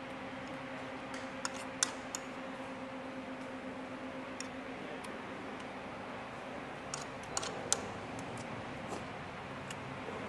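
Metal fork and spoon clinking and scraping on a ceramic plate of rice in short sharp ticks, a few together about one to two seconds in and again about seven seconds in, over the steady hum of an electric wall fan.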